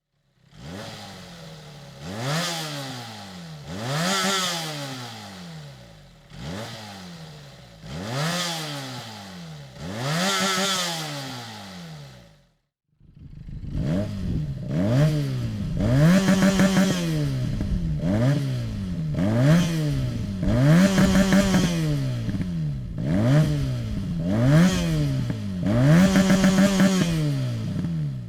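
Benelli 302 S parallel-twin engine revved repeatedly through its exhaust, the pitch climbing and falling with each blip. It stops briefly near the middle, then comes back louder with quicker, more frequent blips.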